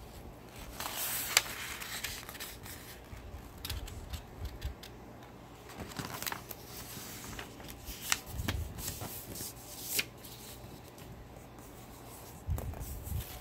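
Sheets of printer paper rustling as they are folded, with fingers rubbing along the crease and a few sharp paper clicks, the sharpest about a second in.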